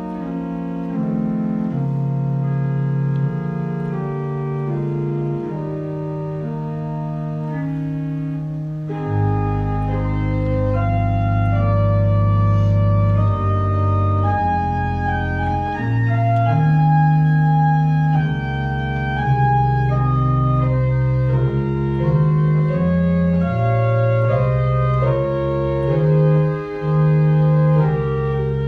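Organ playing offertory music in held, sustained chords. About a third of the way in, deep bass notes come in and the music grows louder.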